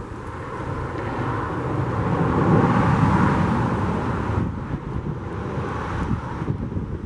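Narrow-gauge steam locomotive FCL 353 working in the distance, a steady rumble that swells to its loudest about two to three seconds in and then eases, with wind buffeting the microphone.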